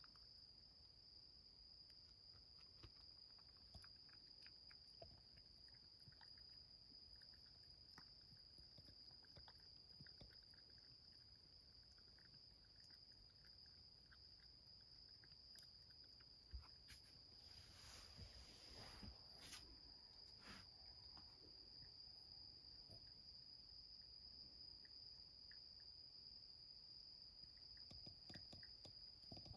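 Near silence: a faint steady high-pitched whine, with faint soft ticks of a cat lapping water from a ceramic bowl and a brief rustle about two-thirds of the way through.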